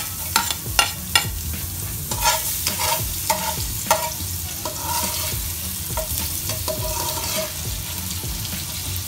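Minced garlic sizzling in hot cooking oil in a pot, stirred with a metal spoon that clicks and scrapes against the pot, most often in the first four seconds.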